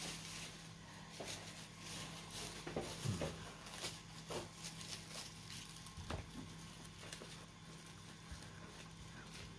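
Thin plastic bag crinkling and rustling in a series of irregular crackles as it is worked over a hand and pressed onto a soft, sticky ube halaya on a plate. A low steady hum runs underneath.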